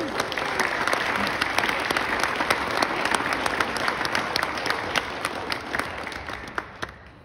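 Small audience applauding, a dense patter of hand claps that thins out and dies away near the end.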